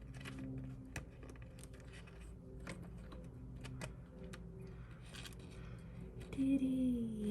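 Scattered small clicks and light rattles of plastic wire connectors being handled and pushed onto a refrigerator inverter control board. A voice starts near the end.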